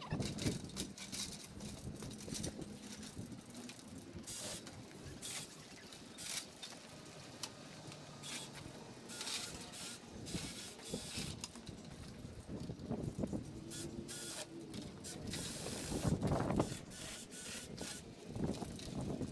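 Pruning work on branches: irregular clicks, snaps and rustling as cherry branches are cut and handled.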